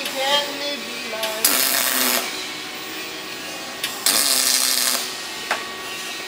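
Two short MIG welding tacks on an aluminium frame: the welding gun's arc hisses for under a second about a second and a half in, then for about a second about four seconds in.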